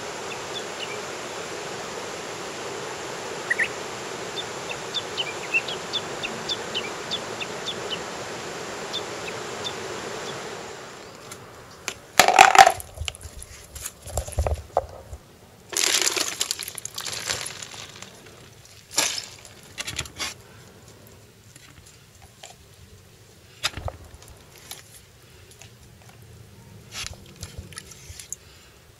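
A river's steady rushing flow with small birds chirping over it; after about ten seconds this gives way to close handling noises: a plastic cooler bucket and its lid knocked about and a plastic bag rustling, in a string of sharp knocks and rustles.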